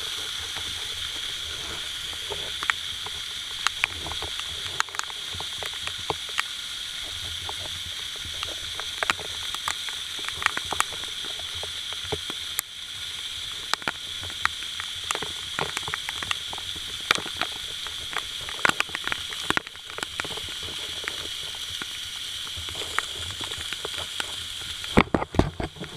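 Steady hiss of rushing waterfall water, with frequent irregular sharp clicks and knocks over it.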